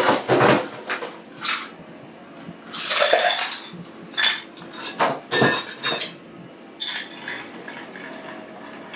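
Glassware and metal bar tools clinking and knocking as a cocktail is put together: a string of separate short clinks, with a longer clatter about three seconds in.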